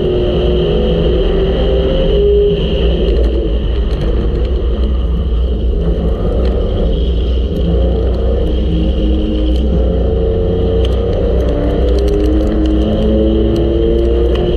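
Front-wheel-drive V6 race car's engine running hard, heard from inside the car, its pitch rising and falling through the turns over a low rumble, with scattered sharp ticks.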